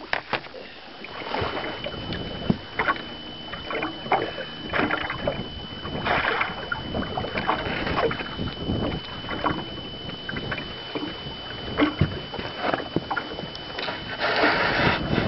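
Choppy lake water slapping against a fishing boat's hull, with wind on the microphone and irregular knocks on the deck.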